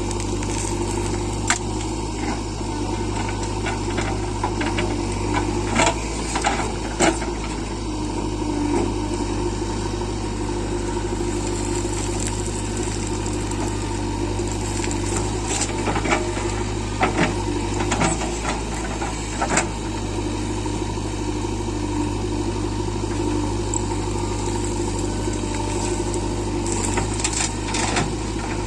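JCB 3DX backhoe loader's diesel engine running steadily, with scattered sharp clanks and knocks.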